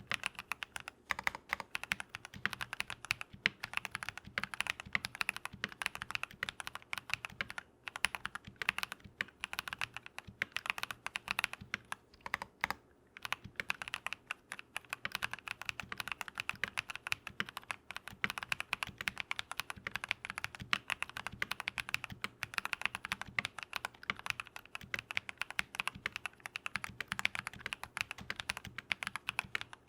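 Steady fast typing on a Keychron V1 mechanical keyboard fitted with lubed Drop + Invyr Holy Panda tactile switches, a dense run of key clacks with brief pauses about 8 and 13 seconds in.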